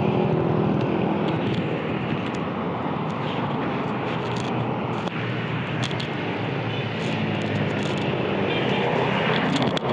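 Motor engines running steadily, with a few short clicks and knocks now and then.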